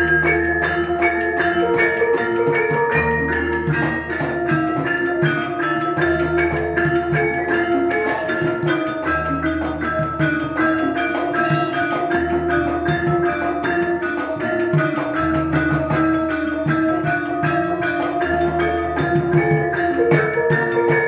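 Javanese gamelan ensemble playing: bronze metallophones ring out a running melody over kendang hand-drumming, with a deep low note returning about every three seconds.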